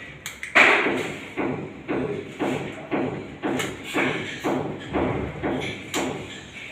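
Regular thuds, about two a second, each dying away quickly, with one louder, sharper knock about half a second in.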